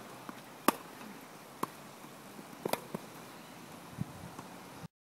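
Tennis ball struck by rackets and bouncing during a rally: sharp pops roughly a second apart, two in quick succession near the middle, over a faint outdoor background. The sound cuts out completely near the end.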